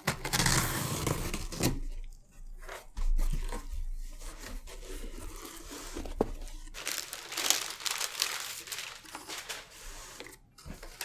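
A shipping box being opened by hand: packaging crinkling and tearing in irregular stretches, with a few sharp knocks and clicks.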